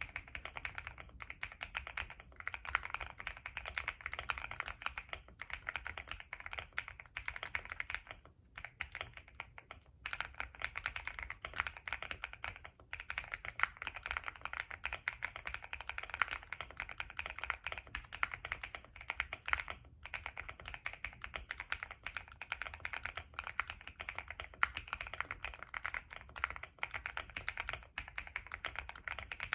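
Fast continuous typing on a Monsgeek M1 mechanical keyboard with stock CIY Naraka switches (POK stems) on a POM plate, its case filled with plate foam, Polyfil and an IXPE layer and tape-modded. The key presses come as dense rapid clacks, with a short pause about eight seconds in.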